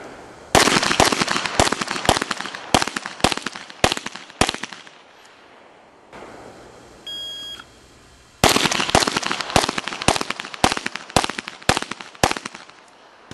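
Two strings of rapid pistol fire, each a dozen or so sharp shots over about four seconds. Between them, about seven seconds in, a shot timer gives its short electronic start beep, about a second before the second string opens.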